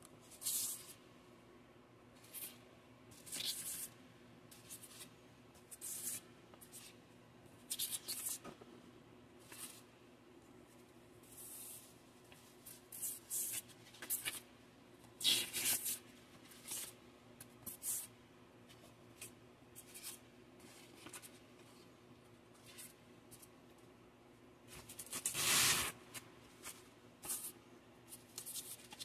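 Sheets of wet/dry sandpaper, blue silicon carbide and tan aluminium oxide, being handled and slid over one another: a string of short papery rustles and swishes, with a longer rustle near the end.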